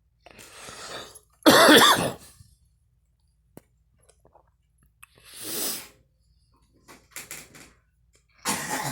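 A girl coughing in several separate bouts. The loudest comes about one and a half seconds in, and further coughs come around five, seven and eight and a half seconds in.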